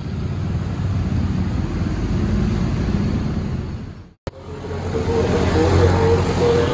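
Motorcycle and car traffic running through a street level crossing, with scooter engines humming. The sound cuts out for a moment about four seconds in, then the traffic comes back louder.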